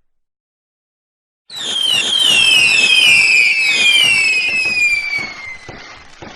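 Fireworks: a sudden burst of crackling and popping, with several whistles sounding together and falling slowly in pitch for about four seconds before fading.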